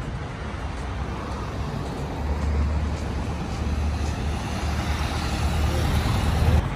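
City road traffic: a steady hiss of passing cars, with a heavier low rumble from about two seconds in that cuts off suddenly near the end.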